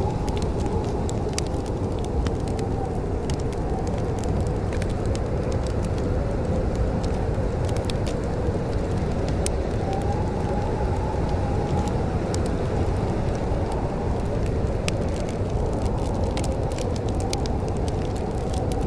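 Wood fire crackling in a fireplace, with scattered sharp pops and snaps over a steady low rumble.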